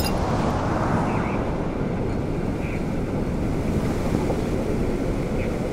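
Steady, low, wind-like rumble of an animated logo sting's sound effect, with no clear pitch.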